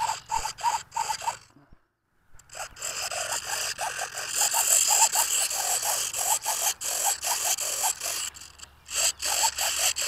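Micro servos of an E-flite UMX Pitts RC biplane buzzing in short repeated bursts as the control surfaces are worked during a pre-flight control check, with a brief dropout about two seconds in.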